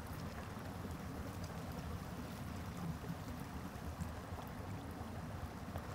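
Running stream water, a steady low rush.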